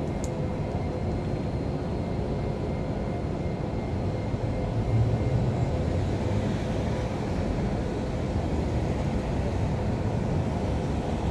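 Steady low rumble of background noise with a faint steady hum, swelling slightly around the middle. A single brief click sounds just after the start.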